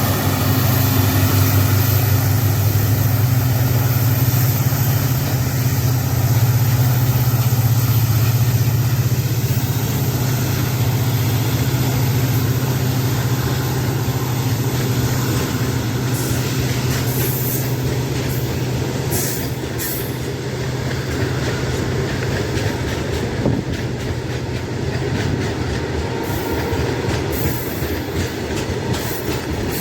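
Freight wagons of a long goods train rolling past under power, wheels clicking over rail joints. The low, steady hum of the twin EMD diesel locomotives hauling it fades out over the first twenty seconds, leaving the clatter of the wagons.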